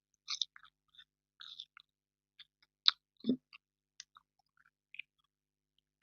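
Close-miked chewing of marshmallow sweets: scattered soft, wet mouth clicks and sticky smacks, with a sharper click about three seconds in and a dull thump right after it.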